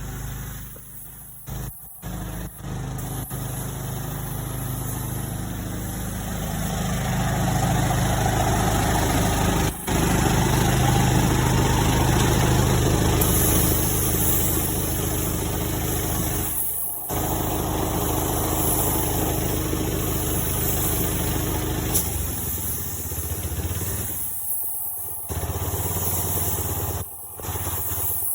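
A motor running steadily, louder in the middle, with several brief sudden breaks where the sound drops out.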